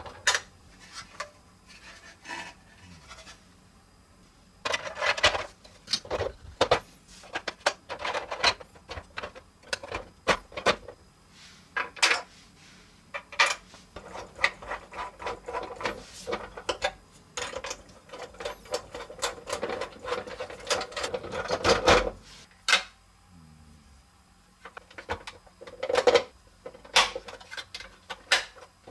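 Hard plastic toy parts being handled and pressed together: irregular clicks, snaps and rubbing as pieces of a toy fire truck kit are fitted into place, busiest through the middle stretch.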